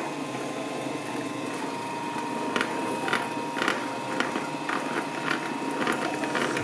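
Dual-shaft shredder running steadily, its steel cutter blades turning against a rugby ball. From about two and a half seconds in, a scatter of sharp ticks, several a second, as the teeth catch on the ball's surface.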